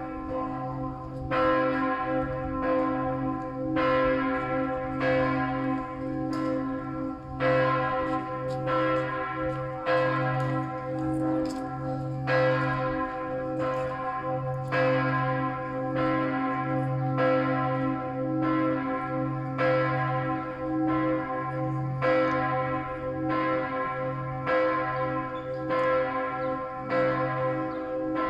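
Church bells ringing the midday peal, with struck strokes coming evenly a little over a second apart over a steady, ringing hum.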